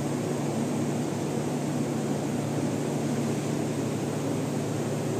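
Steady drone of workshop machinery: a low hum with an even rush of air over it, unchanging in level.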